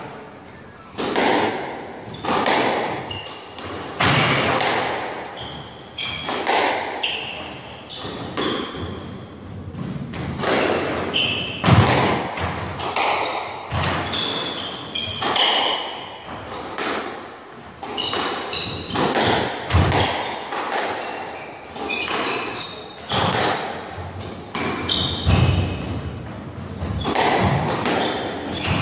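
Squash rally: the ball is struck by rackets and hits the court walls about once a second, sharp echoing knocks, with short high squeaks of court shoes on the wooden floor. The rally starts about a second in.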